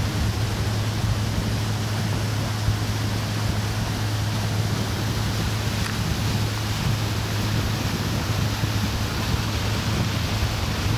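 Boat engine running steadily under way, a constant low drone, over a steady rush of wind and water.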